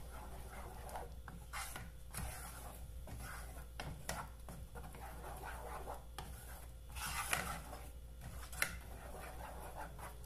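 Wooden spatula stirring a thick creamy sauce, scraping and rubbing against the bottom and sides of a pot in irregular strokes, with two sharper clicks near the end.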